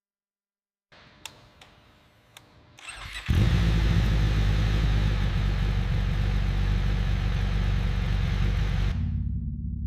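Kawasaki Ninja H2R's supercharged inline-four engine being started: a few faint clicks, then it catches about three seconds in and runs steadily. Near the end the sound drops to a lower rumble.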